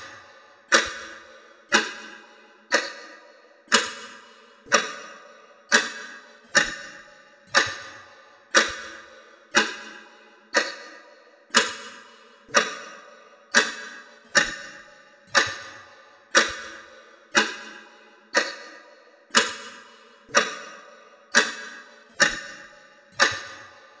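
A clock ticking steadily at about one tick a second, each tick sharp with a short ringing tail.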